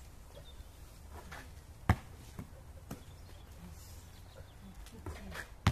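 Basketball bouncing on an asphalt court: a sharp bounce about two seconds in and another near the end, with a few lighter knocks in between.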